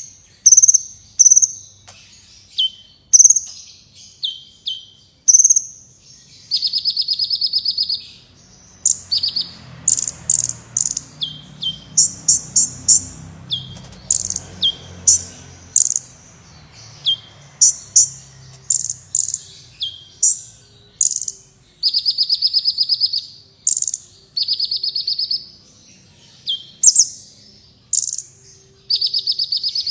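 Kolibri wulung sunbird singing: a fast, continuous run of short, high chips and sharply down-slurred notes, broken several times by rapid buzzy trills.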